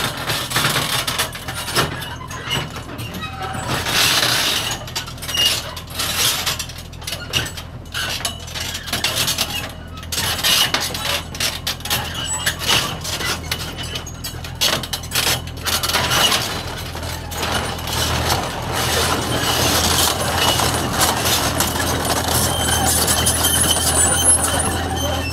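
Kubota KX040-4 mini excavator's diesel engine running steadily while its steel tracks clank and rattle down a trailer's metal ramps, with many sharp knocks in the first two-thirds and steadier engine running toward the end.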